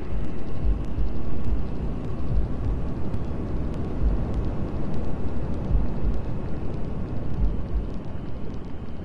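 Wind buffeting an outdoor microphone: irregular low rumbles over a steady rush of noise, with faint scattered ticks.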